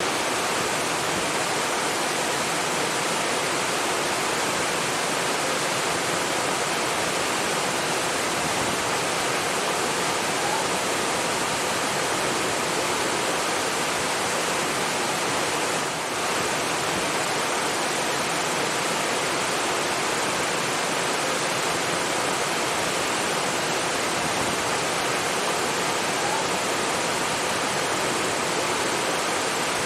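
Running water rushing steadily, like a waterfall or fast stream, with an even, unbroken hiss and a brief slight dip about halfway through.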